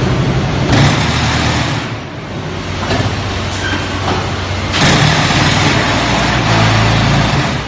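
Pallet-free concrete block making machine running: a steady low hum, with two long stretches of loud rattling machine noise, about a second in and again from about five seconds until near the end.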